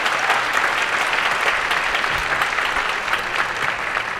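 Audience applauding: dense, steady clapping from a large crowd, easing slightly near the end.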